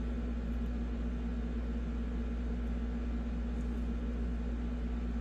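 Steady low hum with one faint steady tone over even background noise, holding at the same level throughout; no distinct handling clicks stand out.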